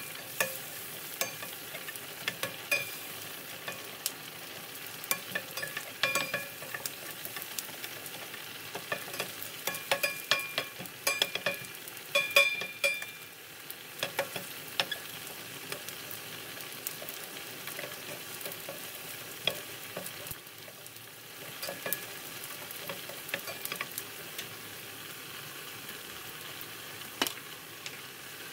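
Food sizzling in a frying pan while it is stirred, with a utensil clicking against the pan many times, most often around the middle.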